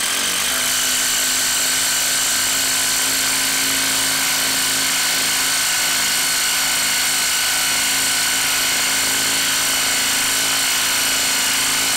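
DeWalt DCF890 3/8-inch cordless impact wrench, converted to a 1/4-inch hex anvil, hammering steadily and rapidly as it drives a lag screw into a wooden stump. The impacting keeps an even pitch and level throughout.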